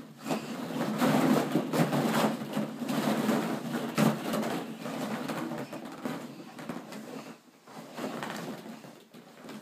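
Plastic ball-pit balls rustling and clattering against each other as a baby crawls and digs through them in a plastic kiddie pool. The clatter is busiest in the first four seconds or so and thins out towards the end.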